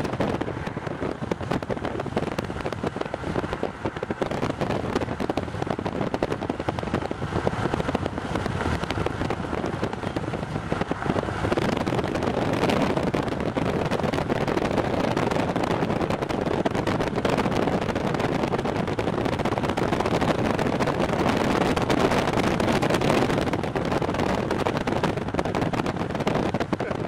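Strong, gusty storm inflow wind buffeting the microphone with a crackling rush, growing louder about halfway through.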